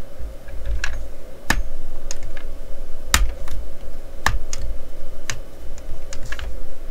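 Irregular sharp plastic clicks and taps, about a dozen, from fingers pressing a small taillight piece into the rear of a scale model Corvette body, which resists going in. Under them runs a dull low rumble of handling bumps on the desk.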